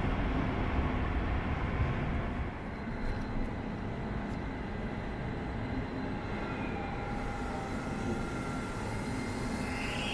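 A train running by on the track, a steady rumble that eases off about two and a half seconds in, with faint thin whistling tones in the later part.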